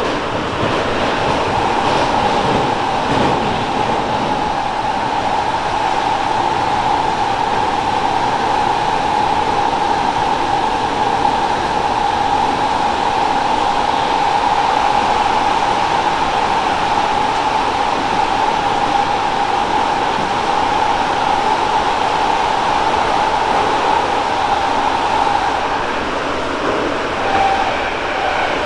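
Tokyo Metro 16000 series electric train running at about 75 km/h, heard from inside the car. A steady rumble of wheels on rail carries a steady whine held at one pitch. Near the end the whine wavers and shifts lower as the train starts to slow.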